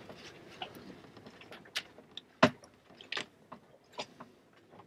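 Scattered small clicks and knocks of hands and tools working at a diesel engine's primary fuel filter housing, the sharpest knock about two and a half seconds in.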